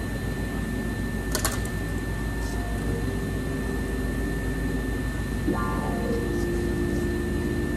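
Cylinder head of a 6.6 L LB7 Duramax diesel V8 being worked loose and pulled off the block. There is a sharp metallic click about a second and a half in, and a brief metal scrape around five and a half seconds in, over a steady shop hum and a constant high whine.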